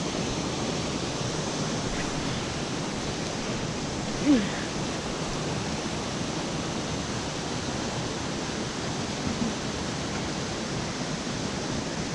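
Steady rush of flowing creek water, with one short falling sound about four seconds in.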